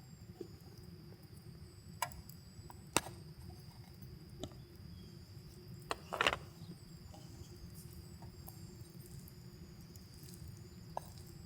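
Steady high-pitched trilling of crickets or other night insects over a low rumble, broken by a few sharp clicks and a short clattering handling noise about six seconds in.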